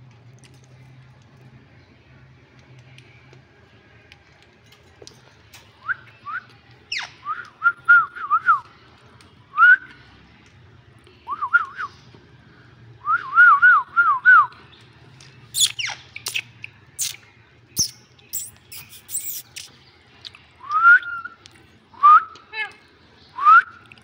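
Rose-ringed parakeets calling: from about six seconds in, short arched whistle notes in quick runs of three or four, with a flurry of sharp, shrill screeches a little past halfway.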